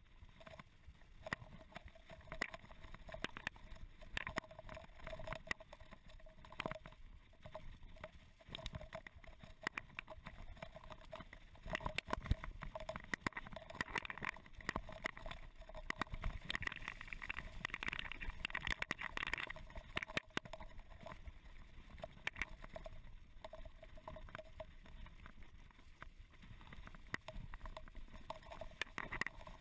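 Mountain bike rolling fast down a rough dirt trail covered in dry fallen leaves: a steady rush of tyre noise, with frequent rattles and knocks from the bike over bumps.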